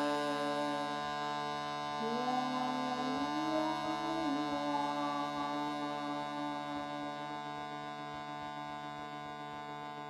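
Shruti box drone, a steady chord of held reed tones. About two seconds in, a wordless voice joins with a sliding note that rises in pitch, for about two seconds. The drone then carries on alone, slowly fading.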